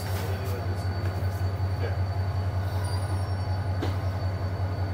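Diesel locomotive's engine idling close by: a steady, low, rapidly pulsing throb, with a few faint clicks over it.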